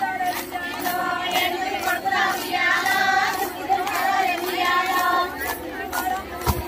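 Group of women singing a Telugu Bathukamma folk song in unison, clapping hands in a steady rhythm of about two claps a second.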